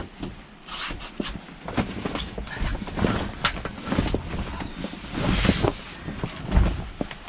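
Handling noise around a boat's plastic cover tarp: irregular rustling, knocks and clicks as it is pulled and rigged, with a longer rush of rustling about five seconds in.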